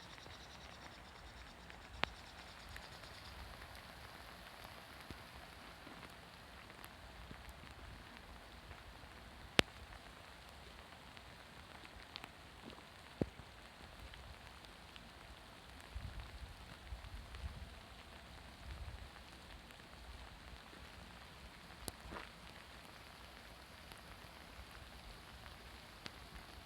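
Steady, faint patter of rain, with occasional sharp drip taps; the loudest comes about ten seconds in. Brief low rumbles come about two-thirds of the way through.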